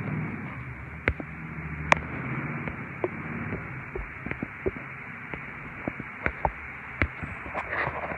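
Handling noise from a phone held in the hand: irregular clicks and knocks of fingers against the phone over a steady hiss, with two sharper knocks about one and two seconds in.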